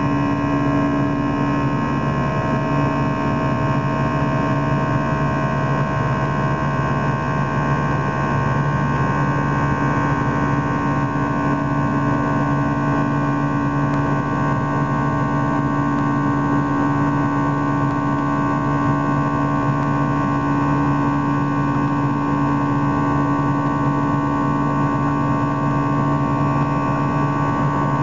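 Cabin noise inside an Airbus A319 in flight: the steady drone of the jet engines, made of several even hum tones over a rush of airflow, unchanging throughout.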